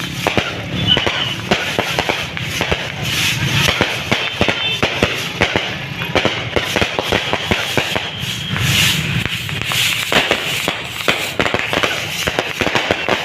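Fireworks going off in a dense barrage: many sharp cracks and pops, irregular and overlapping, with no pause.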